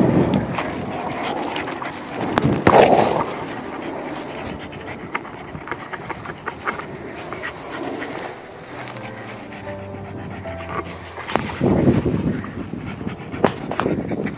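Bichon Frise dog panting as it plays with a ball, with a few louder bursts of breath. About halfway through, a faint steady tone sounds for a couple of seconds.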